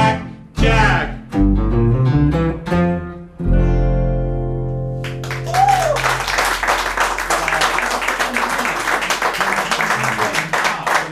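Live blues combo of electric guitar, acoustic guitar and upright bass ending a boogie number with a few closing hits and a held final chord. About five seconds in, a new steady chugging rhythm starts on strummed guitar and walking upright bass, with a brief rising-and-falling tone near its start.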